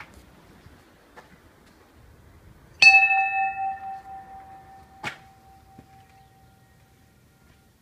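A bell-like chime struck once, ringing out with several clear tones and fading over about four seconds; a sharp click follows about two seconds after the strike.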